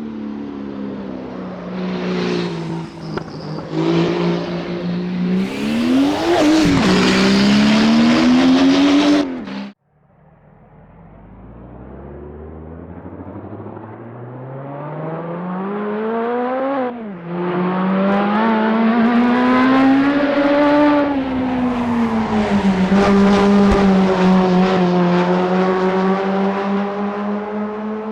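Racing car engine at high revs, accelerating through the gears: the pitch climbs and then drops at each gear change. About a third of the way in the sound cuts off abruptly, then the engine comes back at low revs and climbs again through more upshifts.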